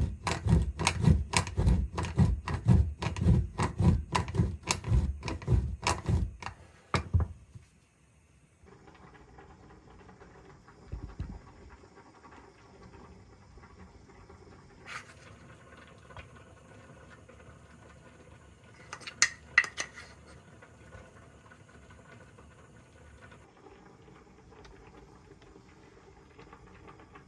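A block of Grana Padano cheese rubbed back and forth on a stainless-steel box grater, with rhythmic scraping strokes about three a second that stop after about seven seconds. Later come a dull knock and a few light clinks.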